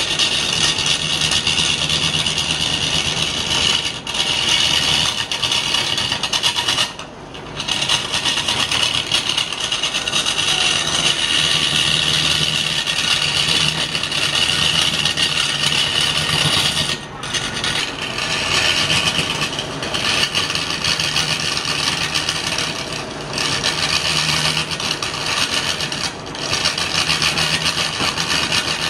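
Wood lathe spinning a large wooden blank while a hand-held turning tool cuts into it: a continuous scraping, tearing cut over a steady low hum from the lathe. The cut breaks off briefly several times where the tool comes off the wood.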